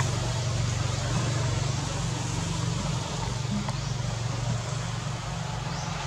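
Steady low drone of a running engine under an even outdoor hiss.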